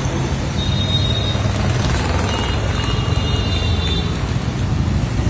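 Steady rumble of road traffic on a busy street, with a few brief, thin high-pitched tones over it.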